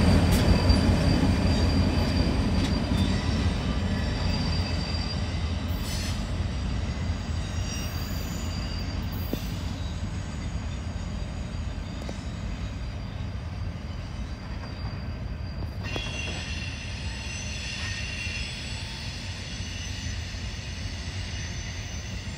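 Freight train rolling past and away: a low rumble, loudest at the start as a trailing CN locomotive goes by, fades steadily as the train recedes, with thin high steel-wheel squeals running on above it.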